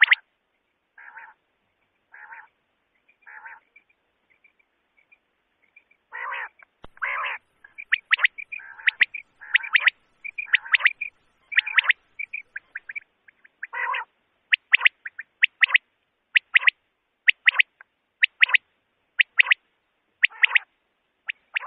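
Common quail calling: short, sharp whistled notes repeated in quick groups about once a second, played as a lure call for quail hunting. The first few seconds hold quieter, lower notes, and from about six seconds in the calling grows louder and busier.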